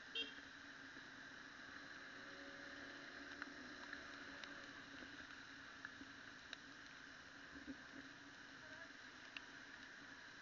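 Near silence through a muffled action camera: a faint steady hum with a sharp click just after the start, then scattered light ticks of raindrops striking the camera.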